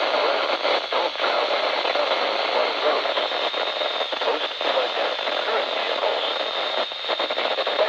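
Steady radio static: a hiss heard through a radio receiver's narrow sound band, with a faint high whine.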